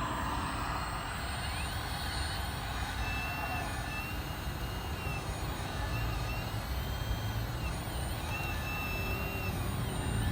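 1/14-scale RC hydraulic excavator working: a high whine from its hydraulic pump rises and dips in repeated arcs as the load changes, over a steady low rumble.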